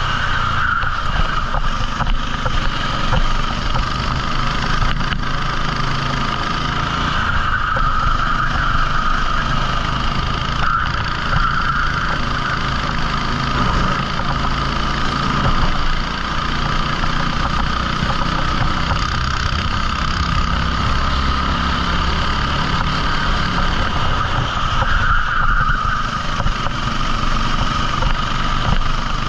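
A 14 hp rental kart engine running continuously under load through the race, its note brightening and easing a little several times.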